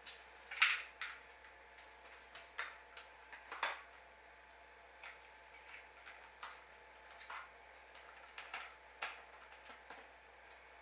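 Irregular light clicks and taps of small plastic parts and tools being handled, with a couple of louder clacks.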